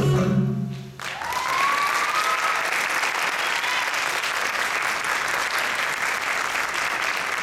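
Recorded guitar music fading out about a second in, then an audience applauding steadily, with one rising cheer just after the clapping starts.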